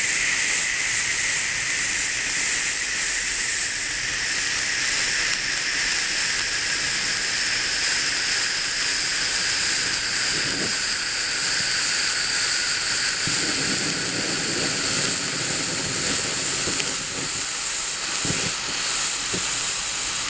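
Ice fountains, small indoor pyrotechnic spark fountains, hissing steadily as they spray sparks. The hiss drifts slowly lower in pitch as they burn.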